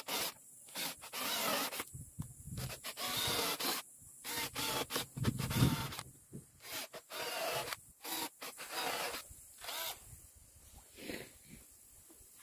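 Cordless drill running in a series of short bursts against wooden boards, the bursts coming close together at first and thinning out toward the end.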